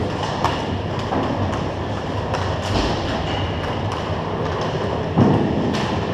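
Hockey game sounds: a steady rumble of skating on the rink with scattered sharp clacks of sticks and puck, and a heavier thump about five seconds in.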